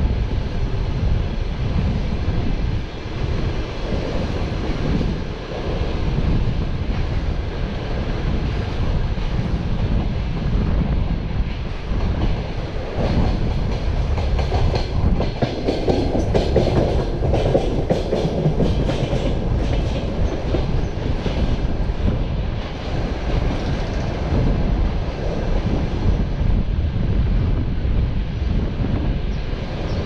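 Passenger train coach running along the track: a steady rumble with the wheels clattering over the rails, heard at the carriage window. The clattering gets louder and busier for several seconds about halfway through.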